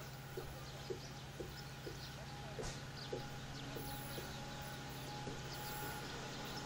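Birds chirping, with short calls repeated about twice a second, over a faint steady low hum of a distant diesel locomotive approaching. The hum grows slightly toward the end.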